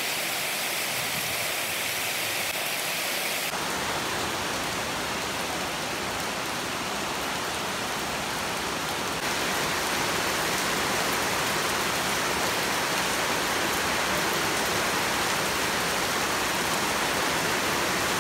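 Heavy rain pouring down steadily, an even, dense wash of downpour, a little louder from about nine seconds in.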